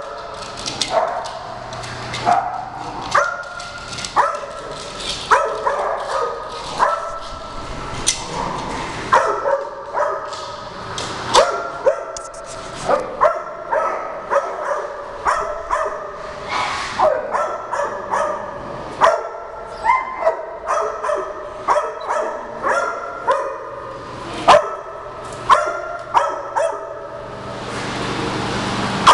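Dogs barking and yipping during play, short sharp barks coming every second or so. A steady rushing hiss swells up near the end.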